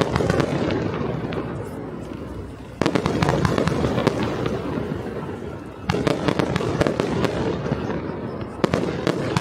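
Fireworks display: three new volleys go off, about three seconds apart. Each starts suddenly with loud bangs and dense crackling, then a rumble that fades before the next.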